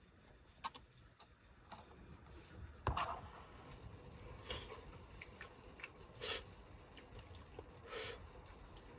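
Faint, scattered clicks and light knocks, roughly one every second or two, the loudest about three seconds in.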